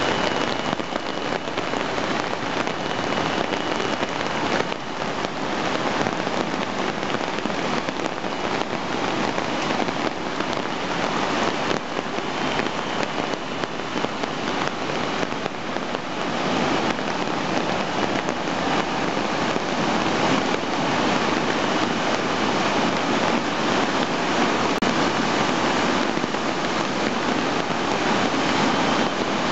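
Flash floodwater rushing and churning through a flooded street and over a cascade under a stone bridge: a steady, loud wash of running water.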